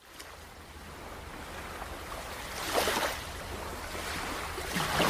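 Opening of a pop song track: a rushing, surf-like noise that fades in and swells twice, over a low rumble, before any instruments or singing come in.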